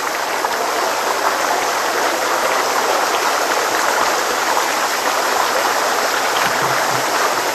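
Steady rushing of whitewater on a canoe slalom course, an even hiss with no breaks, growing slightly louder.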